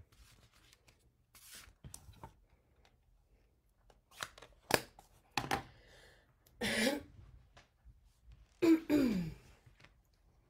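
Handling noise as paper greeting cards are picked up and cleared off a table: faint rustling, then several sharp knocks, and two louder rough sounds with a dropping pitch later on.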